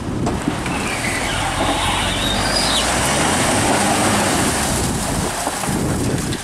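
GMC Canyon's 2.8-litre four-cylinder Duramax turbodiesel working under load as the pickup drives out of a river, tyres churning and splashing through the water and onto gravel.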